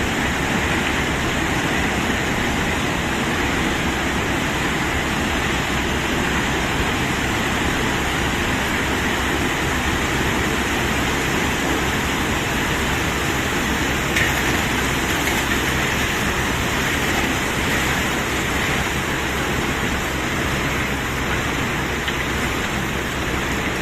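Steady, even noise of a dump truck unloading a load of cobblestones, running on without a break or distinct knocks.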